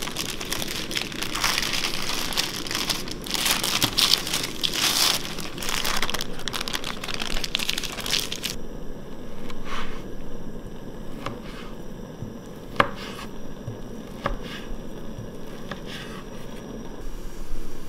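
Baking parchment crinkling and rustling as it is unwrapped from a food log on a wooden board, for about eight seconds. Then a chef's knife slices through the log, each cut ending in a sharp knock on the wooden chopping board, several times about a second and a half apart.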